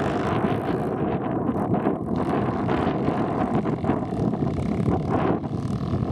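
Honda XR 250 Tornado dirt bike's single-cylinder four-stroke engine running, mixed with wind buffeting the microphone.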